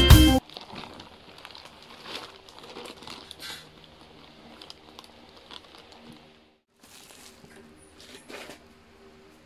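Loud background music cuts off about half a second in, leaving a thin plastic courier mailer bag crinkling and rustling as it is handled, with scattered sharper crackles. After a brief break, plastic bubble wrap rustles, with a couple of louder crackles near the end.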